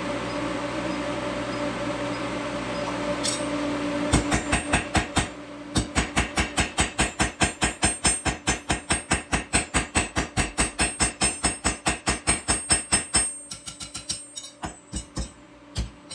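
Induction forge humming steadily for about four seconds, then hammer blows on the hot O1 tool steel bar on the anvil: a fast, even run of about four strikes a second, thinning to scattered blows near the end.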